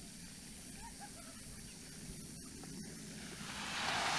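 Quiet beach ambience with a few faint bird chirps about a second in; after about three seconds the hiss of a small wave breaking and washing along the sand swells up and becomes the loudest sound.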